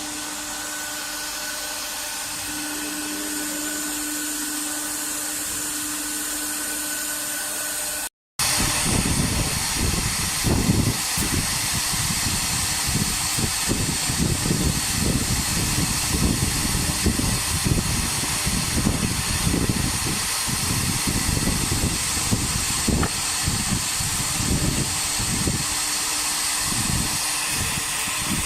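CNC router's air-cooled spindle running while it carves MDF: a steady fan-like hiss with a constant whine. About eight seconds in it drops out for a moment, then comes back louder, with an uneven low rumble under the hiss.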